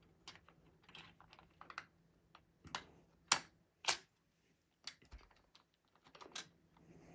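Irregular sharp clicks and taps from GraviTrax marble-run pieces being reset by hand, with two louder clicks about three and four seconds in.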